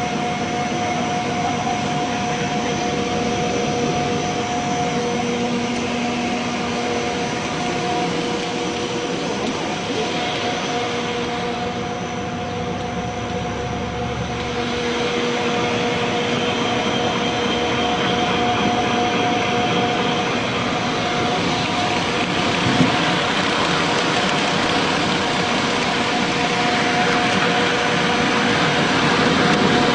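Dog food production line machinery running in a factory test: a steady whirring rush with several constant hum tones. A single short click sounds about two-thirds of the way through.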